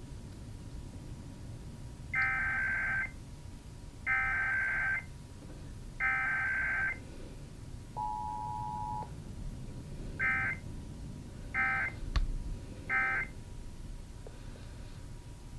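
Emergency Alert System data tones from a TV broadcast: three one-second bursts of warbling digital SAME header tones, then a one-second two-tone attention signal, then three short end-of-message bursts.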